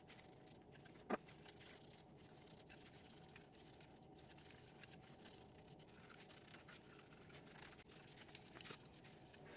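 Wooden abacus beads clacking together on their rods, with one sharp clack about a second in, followed by faint rubbing and crinkling as a paper towel wipes over the beads.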